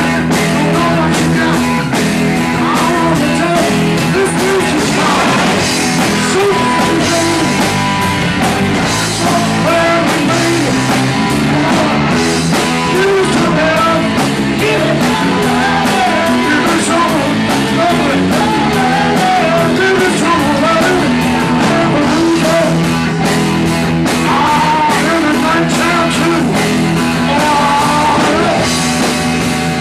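Live rock band playing: electric guitar and drum kit under a lead singer's amplified vocals.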